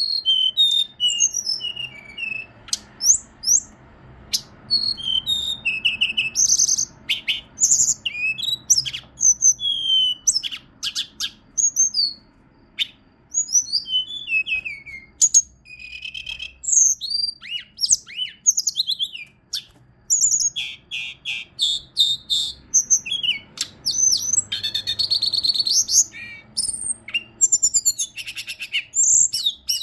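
Hill blue flycatcher (Cyornis whitei) singing: a long, lively run of high, clear whistled notes and quick rising and falling slides in short phrases with brief pauses, including a fast trill near the end.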